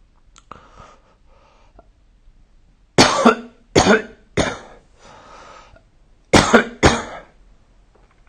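A person coughing: three coughs in quick succession about three seconds in, then two more a couple of seconds later, with fainter sounds in between.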